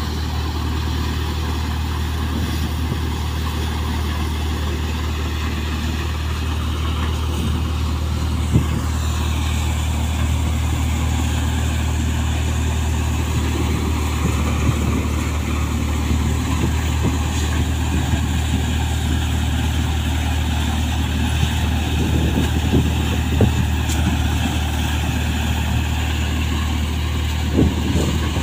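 Tractor-driven cutter thresher running steadily under load as crop is fed in: a steady low engine hum under the machine's noise, with a few sharp knocks, more of them near the end.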